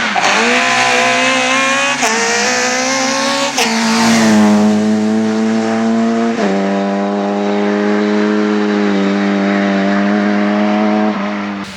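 VW Golf Mk1 rally car's four-cylinder engine under hard acceleration, revs climbing and breaking at gear changes about two, three and a half and six seconds in. It then holds steady high revs and drops off about eleven seconds in as the throttle is lifted.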